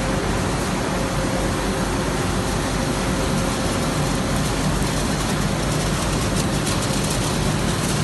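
Codimag Viva 340 waterless offset label press running, a steady mechanical whir and rumble with a faint steady tone. A light rapid ticking joins in near the end.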